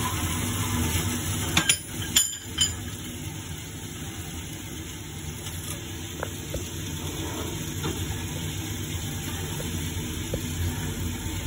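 Swing-type band saw for cutting steel dowel bars running with a steady low motor hum. There are a few sharp metallic clanks about two seconds in.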